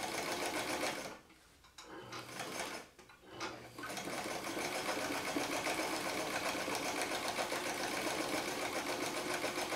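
Vintage White electric sewing machine stitching in free-motion quilting through leather, the needle going up and down rapidly. It stops and starts twice in the first few seconds, then runs steadily.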